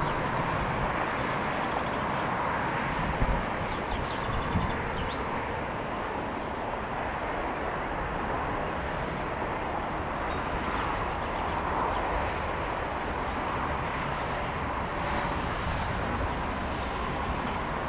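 Jet airliner engines running: a steady, even rush of noise with a faint whine.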